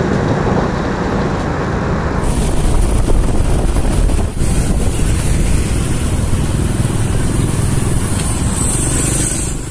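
Steady riding noise from a motorcycle on the road: engine and tyre noise with wind on the microphone. About two seconds in, the sound changes and a high hiss joins it.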